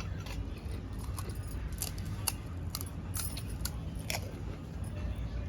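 Scattered small crisp clicks and crunches, a few a second at most, over a steady low rumble: the crackle of crisp panipuri shells being handled and eaten.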